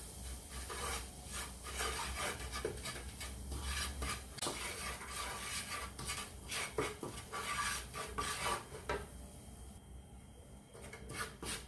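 Wooden spatula scraping and stirring butter and flour in a nonstick frying pan, mixing a roux for white sauce: a run of irregular scraping strokes that eases off briefly about nine seconds in.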